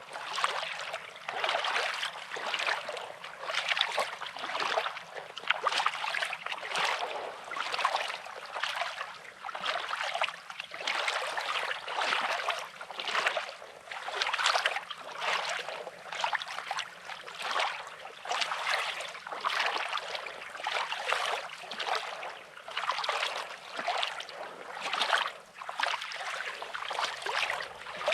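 Small waves lapping and washing over a pebbly shoreline: a continuous series of short, splashy washes, a couple each second.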